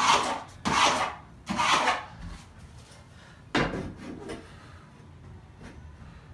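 Rasping, scraping strokes on wood: three quick strokes one after another, then a single stroke about three and a half seconds in.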